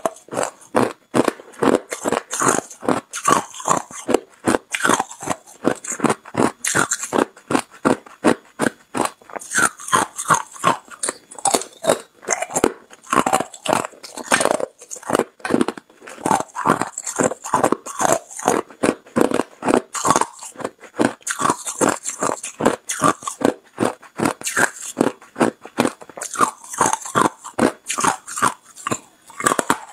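Hard ice cubes crunched between the teeth close to the microphone, a rapid run of sharp crunches at about two a second.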